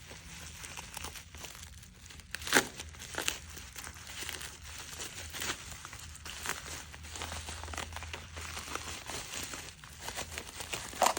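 Watch packaging wrap being crumpled and handled during unboxing, a steady crinkling with a few sharper crackles, the loudest about two and a half seconds in and again near the end.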